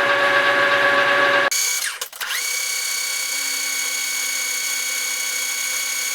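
Metal lathe running with the carriage on power feed, turning a shaft: a steady machine whine. About a second and a half in the sound changes abruptly to a thinner, higher whine, with a brief dip and a drop and rise in pitch before it settles.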